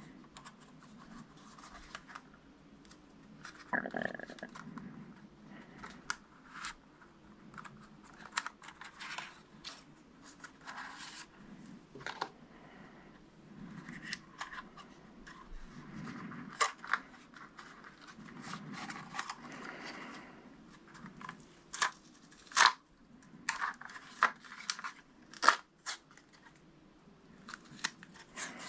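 Hands handling a DJI Mavic Mini drone: irregular small plastic clicks, snaps and rustling as it is turned over and its parts are worked, with a few sharper snaps a little past the middle.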